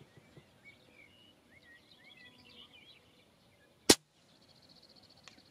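A single sharp shot from a Reximex Throne Gen2 PCP air rifle firing a slug, about four seconds in. Faint bird chirps come before it.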